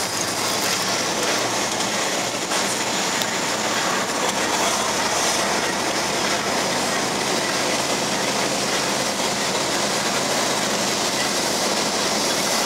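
Steady in-cab noise of a MAN TGA XXL truck under way: the diesel engine running evenly under road and wind noise.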